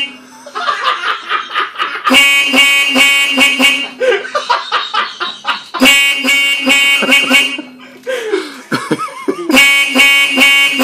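Hikvision DVR's built-in buzzer beeping during start-up, which it does at every boot. The beeps come in loud bursts of rapid, shrill pulses lasting about a second and a half, repeating about every four seconds, with voices in the pauses.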